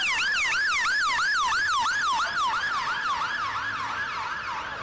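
Ambulance siren on the fast yelp setting, its pitch sweeping rapidly up and down about three times a second, growing a little fainter near the end.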